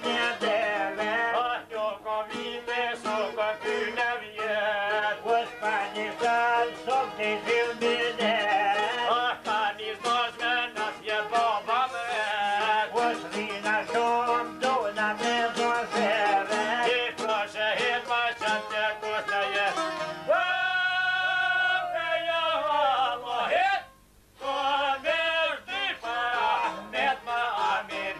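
Traditional Albanian folk music played live on violin, long-necked plucked lute and frame drum, with a man singing. About twenty seconds in, one long note bends and falls, and the music drops out for a moment a few seconds later.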